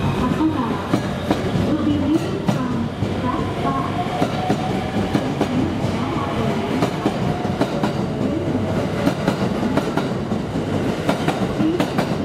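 JR 285-series 'Sunrise Express' sleeper train running past along a station track, with a steady rumble and the clickety-clack of its wheels over the rail joints.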